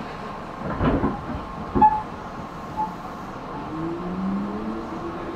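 Inside a Tobu 10030 series electric train car: steady running noise with a dull thump about a second in and a sharp knock shortly after, then the traction motors' whine rising in pitch as the train picks up speed.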